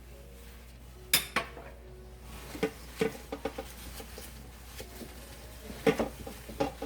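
Celery stalks being handled in a bowl while being washed, with scattered knocks and clinks against the dish: one a little after a second in, a cluster around the middle, and another near the end.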